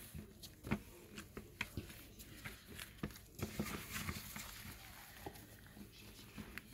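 Gloved hands kneading crumbly glutinous rice flour dough in a stainless steel basin: faint, irregular soft pats and knocks.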